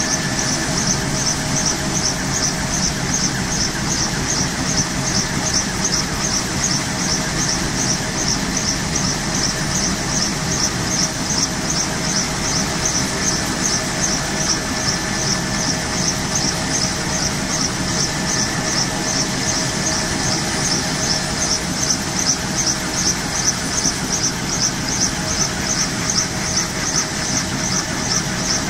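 Kaman K-MAX helicopter running on the ground at idle: the T53 turboshaft whining steadily over the rumble of its intermeshing rotors turning. A high hiss pulses about twice a second throughout.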